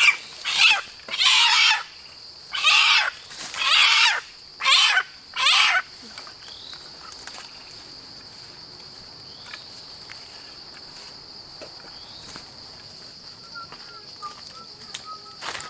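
A caught chicken squawking in about eight loud, harsh bursts over the first six seconds. After that only a steady high-pitched buzz is left, with a few faint bird chirps near the end.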